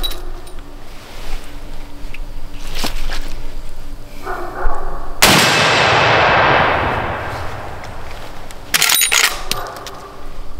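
A single shot from a Henry .45-70 Government lever-action rifle about five seconds in, echoing and fading over a couple of seconds. Short metallic clicks and clacks of the rifle's action come before it and again near the end.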